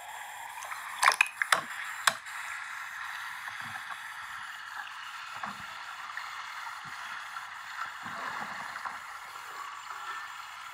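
Water splashing as a freediver who has blacked out is lifted to the surface by a safety diver: a few sharp splashes in the first two seconds, then a steady wash of water noise.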